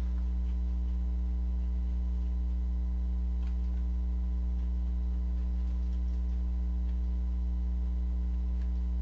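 Steady low electrical mains hum with a ladder of overtones, with a few faint ticks in the middle.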